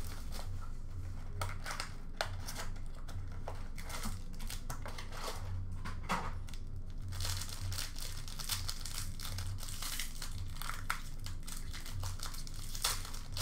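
Foil trading-card pack wrapper crinkling and tearing as it is opened by hand: irregular crackles, densest about seven to nine seconds in, over a low hum.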